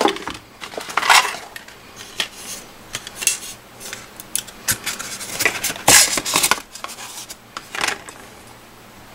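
Cardboard box packaging and plastic eyeglass frames being handled as the glasses are taken out of their box: scattered rustles and scrapes with a few sharp clicks, the loudest about two thirds of the way through.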